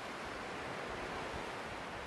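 Steady wash of surf from the sea, an even rushing with no distinct breaks.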